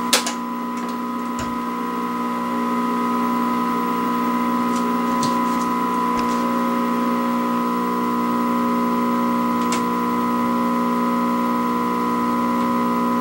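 Steady buzzing hum from the speaker of a 1960s Canadian Marconi portable vacuum-tube TV, several steady tones sounding together, a lot of hum. A sharp click right at the start as a knob on the set is turned, and a few faint ticks later.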